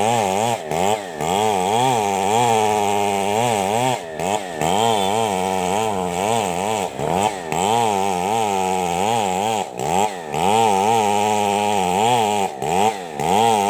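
Stihl two-stroke chainsaw ripping lengthwise along a coconut log, its engine pitch wavering up and down as the chain loads and frees in the wood. There are short drops in loudness, in pairs, about every three seconds.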